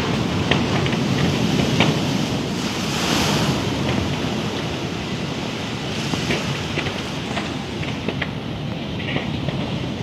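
Wind rushing over the microphone and sea water washing, a steady noisy rush. Short sharp crackles come and go throughout.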